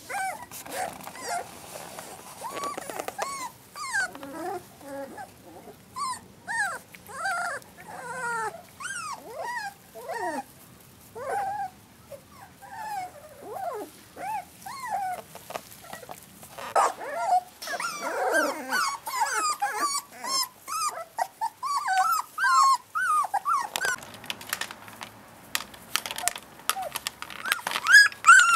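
Four-week-old puppies whimpering and yipping as they play, many short high calls that rise and fall, overlapping one another. Near the end a run of sharp clicks joins them.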